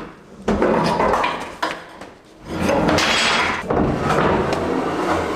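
A car's rear axle assembly being slid back out from under the chassis: a run of metal clunks and scraping, with several sharp knocks.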